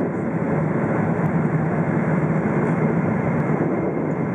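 Steady rush of engine and airflow noise inside the cabin of a Boeing 777-300ER with GE90-115B engines, descending on approach, with a low hum under an even roar.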